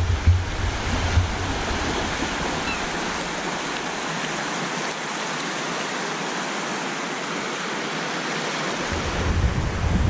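Small waves washing onto a pebble beach: a steady, even surf wash. Wind buffets the microphone at first, drops away after about three seconds, and comes back near the end.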